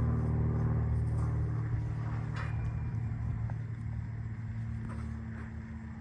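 Low, steady engine rumble with a hum, slowly fading away over several seconds.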